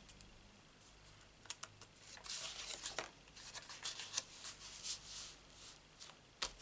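Faint rustling and rubbing of card stock under the hands, with light taps and clicks, as a foam-mounted paper panel is positioned and pressed down onto a card front. A sharper click comes near the end.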